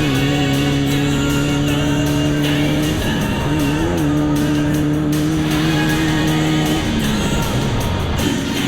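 Air-cooled VW flat-four engine of a Class 11 VW Bug race car held at steady revs, its pitch wavering briefly about three and a half seconds in and falling away near the end as the revs drop.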